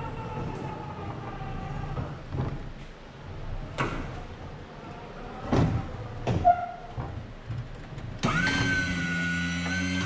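Electric walk-behind pallet jack driving across the shop floor, its drive motor whining and sliding up and down in pitch, with a few clanks from the forks. About eight seconds in, a louder steady motor hum starts and runs for about two seconds as the forks reach the paper pallet, typical of the jack's hydraulic lift pump.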